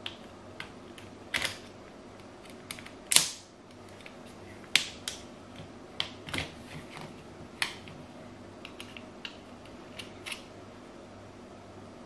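Screwdriver working a jubilee clip (worm-drive hose clamp) on a washing machine's plastic drain hose, loosening it: irregular small metallic clicks and taps, the loudest about three seconds in.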